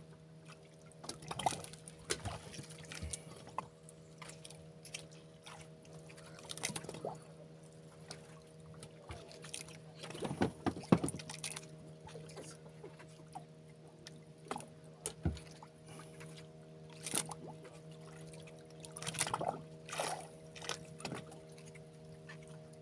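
Wet nylon hand line being hauled in hand over hand, with water trickling and dripping and scattered small splashes and knocks. A steady low hum runs underneath.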